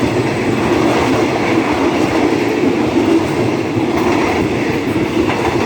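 Passenger train passing close by at speed, its wheels rumbling steadily over the rails.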